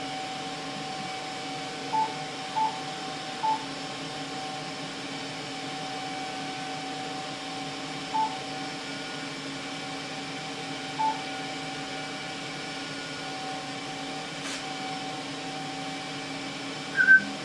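Steady whirring hum of a powered-up 3-500Z valve linear amplifier and its high-voltage supply, with a couple of steady tones in it. Five short electronic beeps cut through it: three close together about two seconds in, then two more several seconds apart, with a higher blip near the end.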